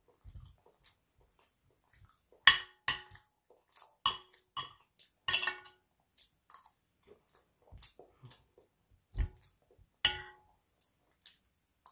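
Metal knife and spoon clinking and scraping on a ceramic plate while cutting chicken off the bone: irregular sharp clinks, some with a short ring of the plate, the loudest about two and a half seconds in. Chewing can be heard between them.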